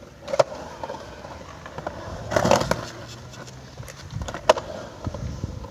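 Skateboard dropping into a concrete pool bowl and rolling across it: wheels rumbling on the concrete, louder a little past two seconds in, with a sharp clack as the board drops in and another near the end.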